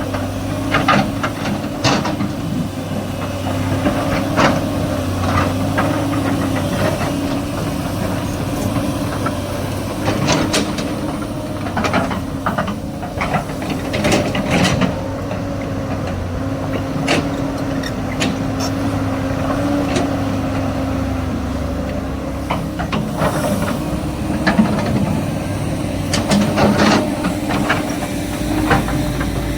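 SANY excavator's diesel engine running steadily, with scattered sharp knocks and clanks throughout.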